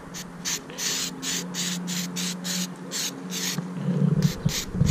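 Aerosol degreaser spray can hissing in a dozen or so short, quick bursts aimed at a bare metal exhaust header, with a brief pause near the end.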